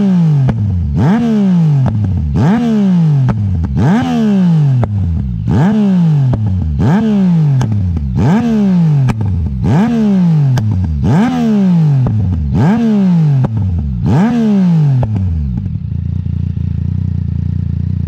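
Yamaha MT-09 three-cylinder motorcycle engine through its exhaust, blipped about ten times in a row. Each rev climbs sharply and falls back over about a second, then the engine settles to a steady idle near the end.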